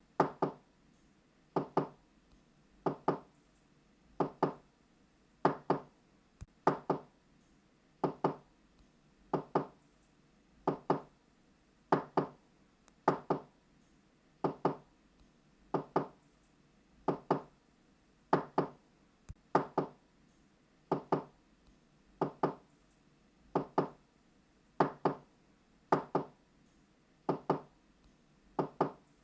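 Knocking on a door, knuckle raps in quick pairs ('knock-knock'), each pair repeated about every second and a half.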